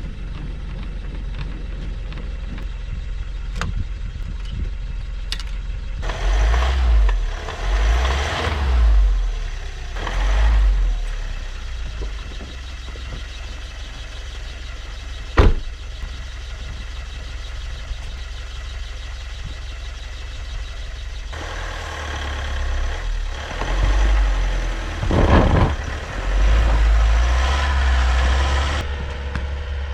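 Motor vehicle engine running steadily, with two longer stretches of louder rushing noise and a single sharp knock about halfway through.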